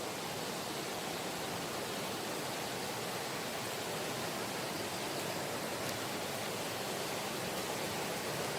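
Mountain stream water rushing over rocks: a steady, even rush with no breaks.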